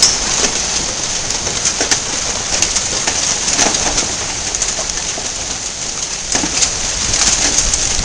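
Hail pelting down in a dense, steady hiss, with many sharp cracks of individual hailstones striking hard surfaces.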